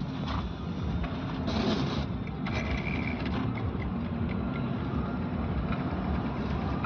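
Vehicle engine running with a steady mechanical noise from its alternator. The mechanic traces the noise to the alternator, which shows marks where something has been catching against it.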